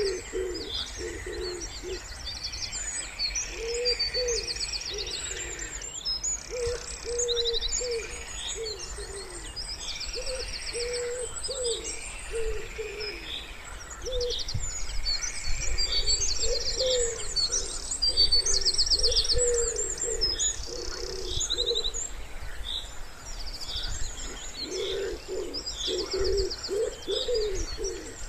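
Wood pigeons cooing in repeated low phrases that come in several bouts with short pauses. Small songbirds chirp and sing rapid high trills over them throughout.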